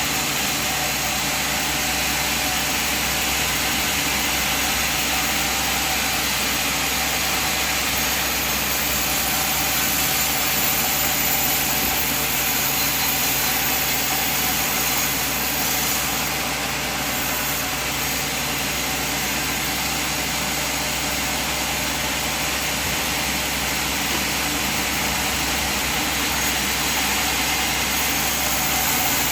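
Sawmill machine running steadily, a constant engine-like hum with a high hiss over it.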